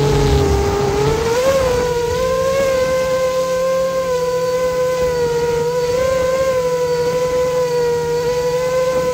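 7-inch FPV quadcopter's motors and propellers whining steadily, noisy because the iPhone's microphone sits right beside the props. The pitch holds with slight wavers and rises briefly about a second and a half in.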